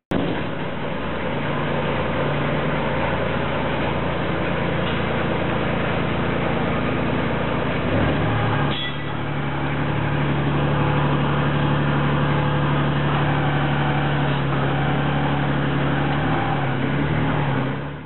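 Engine of an amphibious outboard boat running steadily as the boat drives on its wheels over land; the engine note steps up about eight to nine seconds in.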